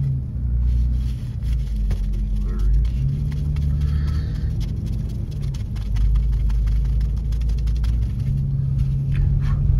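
Low engine and road rumble of a car, heard from inside the cabin while driving, with steady low hum tones that shift every few seconds.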